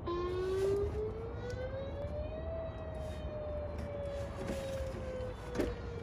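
A mini Whelen siren starts up, its single wailing tone rising in pitch for about two and a half seconds and then slowly falling. A short knock sounds near the end.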